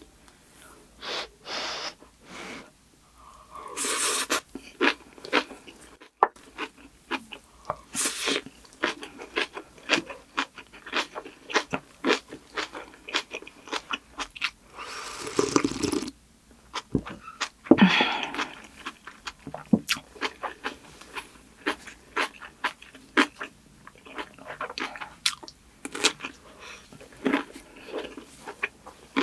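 Close-miked eating sounds of rice and kimchi: irregular crunching bites and wet chewing clicks, with a few longer noisy stretches between them.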